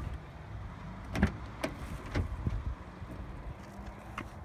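Rear door of a Hyundai Accent being opened and handled: a few sharp clicks and knocks of the latch and door, over a faint steady low hum.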